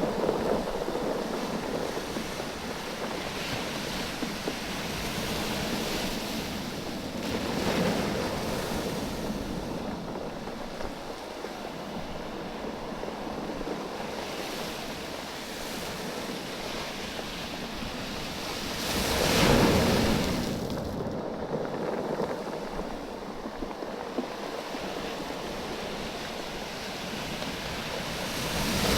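Small waves washing up over a beach of rounded oval stones and draining back, the stones clattering against each other in the backwash. The wash swells several times, loudest about two-thirds of the way through.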